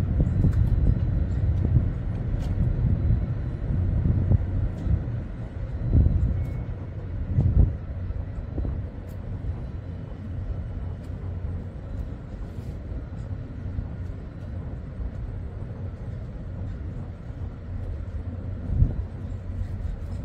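Low rumble of wind buffeting the microphone, rising and falling in gusts, with a few stronger gusts and calmer, steadier stretches in the second half.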